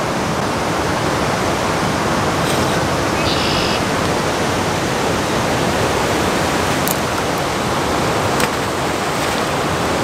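Steady rush of a fast, shallow river flowing over a rocky bed and spilling over a low weir.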